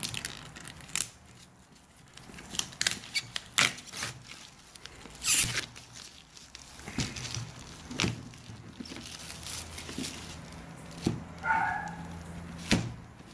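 Plastic shrink wrap being torn and peeled off a cardboard board-game box: irregular crinkles and sharp rips, the loudest about five seconds in, with some knocks of the box being handled. A brief squeak comes near the end.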